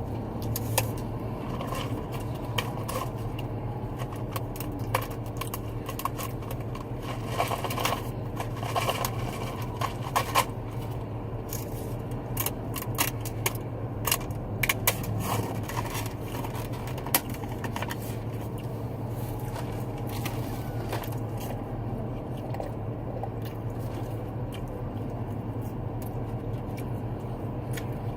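Pellet ice clinking and scraping in a lemonade cup as it is shaken and the straw worked through it: many short, irregular clicks, thinning out after about seventeen seconds, over a steady low hum.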